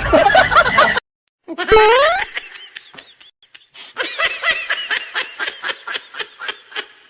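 High-pitched laughter in a rapid run of short pulses, about five a second, after a brief rising glide about two seconds in.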